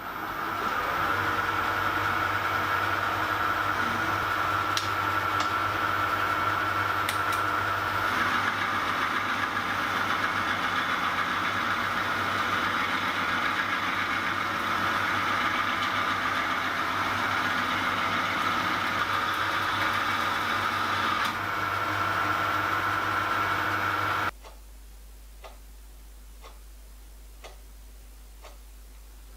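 Metal lathe running steadily while turning a cast leaded gunmetal workpiece, its motor and gearing giving a constant hum with a high whine. Near the end the lathe stops abruptly, leaving only faint ticking about once a second.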